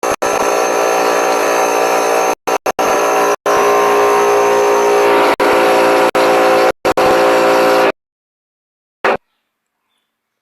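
A motor running with a steady whine, cut off abruptly several times. It stops about eight seconds in, followed by one brief burst about a second later.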